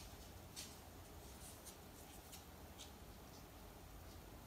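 Near-silent room with a few faint, light ticks, a cat's claws on the wooden floor as it walks in.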